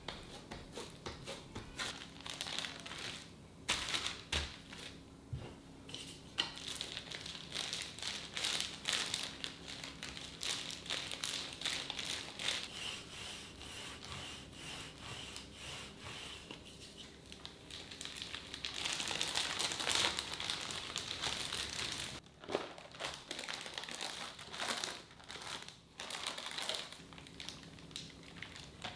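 Hands handling food and kitchen materials: continuous crinkling and rustling with many small clicks and taps, louder for a few seconds near the end.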